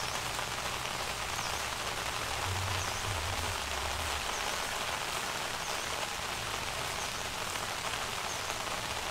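A steady, even hiss like light rain falling, with a faint high chirp repeating about every second or so.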